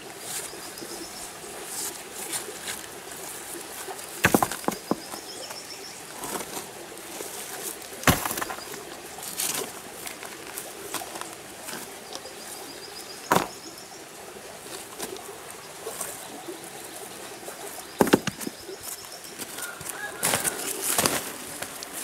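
Sharp clacks and rustles every few seconds as things are picked up and dropped on a stony, debris-strewn bank, over a steady outdoor hiss. A bird's short high trill recurs several times.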